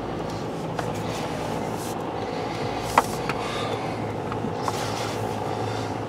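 2013 Jeep Wrangler's 3.6-litre V6 running as the Jeep is driven slowly, heard from inside the cabin as a steady hum. A few short sharp clicks break through, the loudest about three seconds in.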